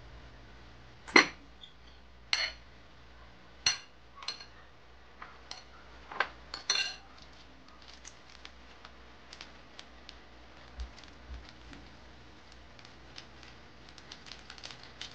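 A metal spoon clinking against a ceramic plate and a stainless steel bowl while raw egg yolks are spooned from one to the other: about six sharp clinks over the first seven seconds. Then only faint scattered ticks.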